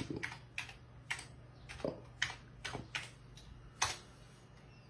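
Keys being typed one at a time on an Amiga A1200's built-in keyboard, about ten unhurried keystrokes that stop shortly before the end. A faint steady low hum runs underneath.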